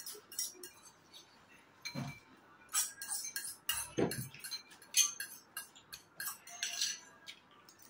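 Spoons and forks clinking and scraping against bowls during fast noodle eating: a scattered run of sharp clicks and taps, with two short low-pitched sounds about two and four seconds in.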